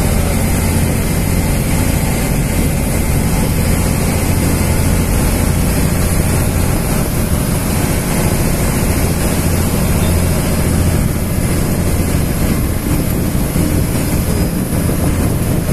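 Ferry launch under way: its engine running with a steady low drone, over the hiss of water rushing along the hull.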